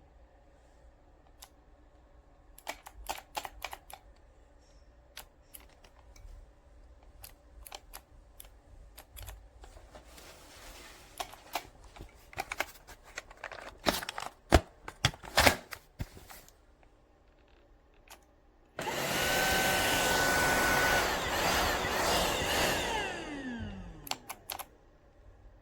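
Handling clicks and knocks, then a Tineco Pure ONE S11 cordless stick vacuum switched on. Its motor runs with a loud steady whoosh for about five seconds, then is switched off and winds down with a falling whine.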